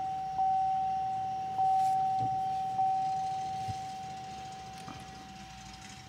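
Cadillac's dashboard warning chime sounding on key-on with the engine off: one steady mid-pitched tone, re-struck three times about every 1.2 seconds, then fading slowly.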